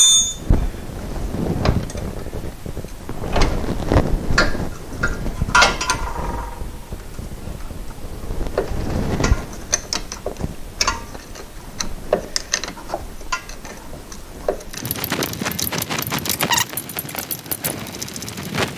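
Hand tools working metal shift-linkage parts under a car: scattered metallic clicks, knocks and clanks, then a rapid rattling run of clicks for the last few seconds.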